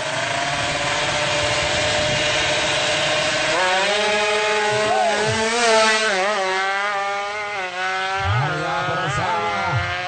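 150cc drag bike engine run hard at high revs. Its high, raspy note grows stronger about three and a half seconds in, and its pitch drops and climbs again several times, as at gear changes.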